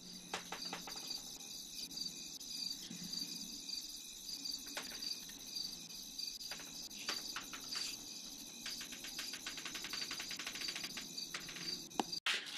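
Insects chirring outdoors at dusk in a steady high-pitched pulsing chorus, with scattered light clicks and knocks through it.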